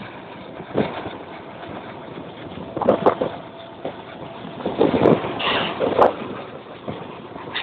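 Train running, a steady rumble broken by irregular clanks and knocks about 1, 3, 5 and 6 seconds in.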